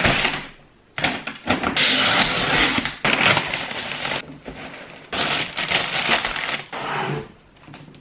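A paper mailer bag being torn open and rustled, then a cardboard shoebox slid out and opened: bursts of crackling, tearing paper and packaging handling.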